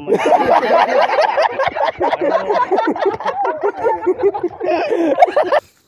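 Several people laughing and talking over one another, loud, cutting off suddenly near the end.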